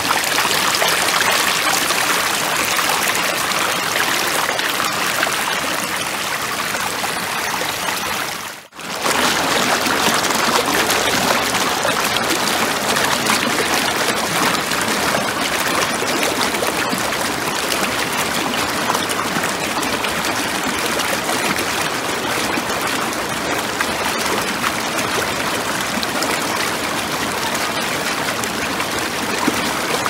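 Mountain stream rushing and splashing over boulders, a steady loud hiss of water, cut off for a moment about nine seconds in.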